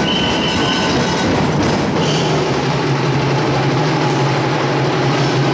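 Loud, dense, continuous drumming of an Ati-Atihan street-dance percussion band. A short high steady tone sounds near the start and again about two seconds in.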